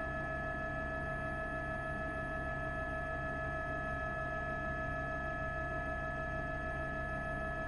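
A steady electronic tone: several pure pitches held level and unchanging, over a low hum.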